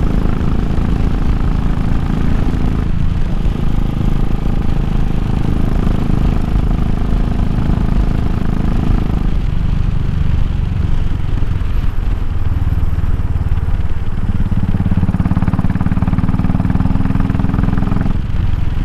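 Royal Enfield Classic 500's single-cylinder engine running steadily while the motorcycle is ridden along the road. Its note dips briefly about three seconds in and again around nine to ten seconds.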